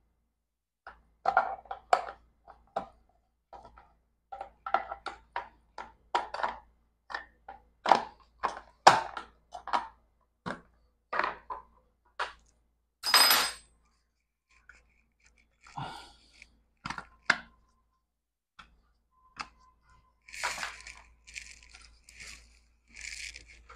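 Clicks, knocks and scrapes of a car's plastic smart key module (SMK) being handled and worked on at a desk, with a longer noisy scrape about halfway and several short hissy scrapes near the end.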